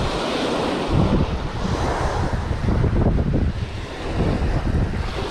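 Surf washing on the beach, with wind buffeting the microphone in uneven gusts.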